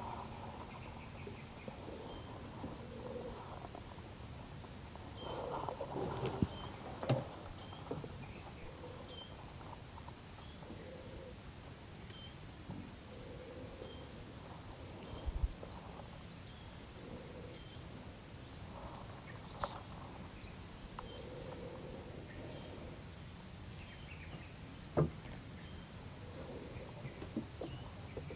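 Steady high-pitched chorus of insects droning with a fine, rapid pulse, with a few faint knocks.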